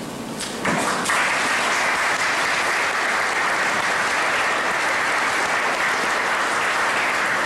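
Audience applauding: steady clapping that starts under a second in and dies away near the end.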